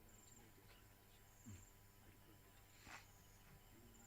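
Near silence with faint, high, pulsed insect chirping, cricket-like, repeating every second or so, and a soft click about three seconds in.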